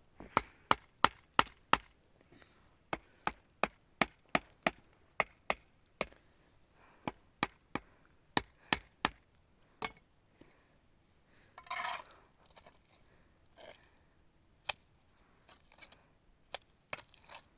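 Repeated sharp blows of a hand tool, about three a second, coming in short runs with pauses between them. About twelve seconds in there is a brief noisy scrape.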